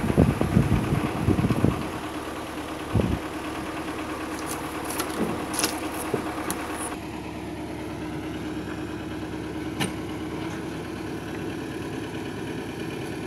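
Tractor engine idling steadily. Over it, wooden slabs and boards clatter as they are thrown off the trailer onto a pile: loud knocks in the first couple of seconds, one more about three seconds in, and a few lighter clacks up to about seven seconds in.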